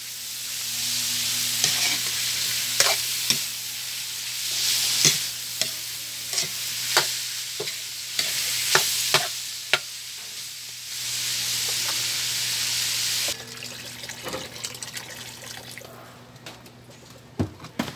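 Chunks of meat frying and sizzling in a steel wok, with a metal spatula scraping and clinking against the pan as they are stirred. The sizzling cuts off abruptly about two-thirds of the way through, leaving only a few quieter clinks.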